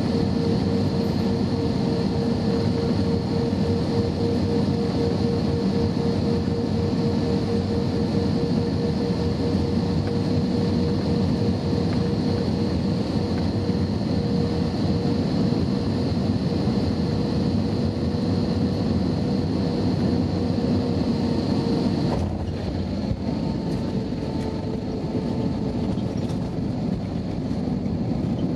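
Cabin noise inside an Airbus A320-232 on final approach: the steady rush of its IAE V2500 engines and airflow, with a steady hum. About twenty-two seconds in, a thud marks the main wheels touching down, the hum fades, and the rushing goes on as the plane rolls down the runway.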